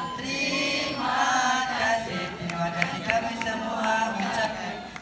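A mixed group of young people chanting a song together in Malay, many voices in unison.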